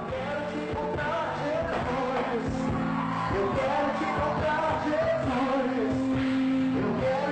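Live band music on stage: a singer's voice over held chords, bass and drums keeping a steady beat.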